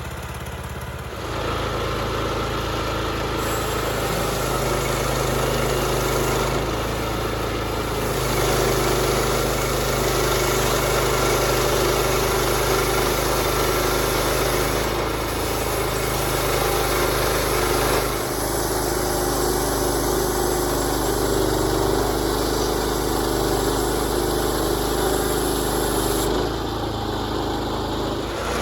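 Portable bandsaw sawmill's engine running steadily, getting louder about a second in.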